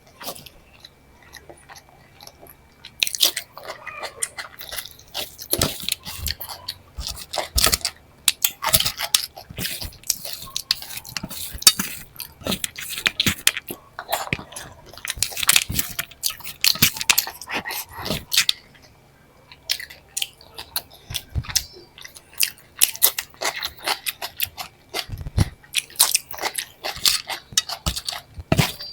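Close-miked eating sounds: a person chewing and biting with wet mouth noises and crisp crunches. The sounds come thick and irregular from about three seconds in, with a short pause about two-thirds of the way through.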